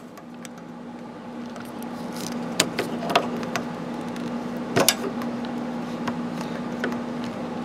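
Screwdriver clicking and scraping against metal as it pries at a small cap behind a nut on a motorcycle's rear shock mount, with a few sharp clicks in the middle, over a steady low hum.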